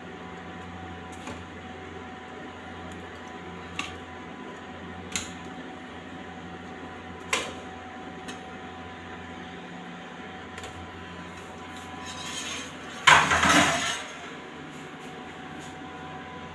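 Light clinks and knocks of tableware as fried bomb pakoras are set out on a plate beside glass sauce bowls: a few separate taps, then a louder noisy burst about a second long near the end, over a steady low hum.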